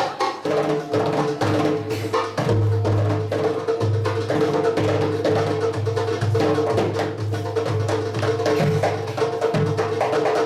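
Live Arabic dance music from a band with keyboard and hand drums: a long held melodic note from about half a second in, over a busy rhythm of drum strikes.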